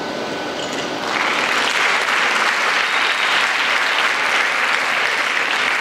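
Audience applauding, swelling in suddenly about a second in and then keeping up steadily.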